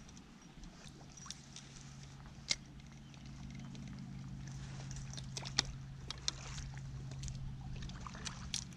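Water slapping and sloshing around a small kayak, with scattered sharp knocks and splashes. Under them runs a steady low hum that slowly grows louder.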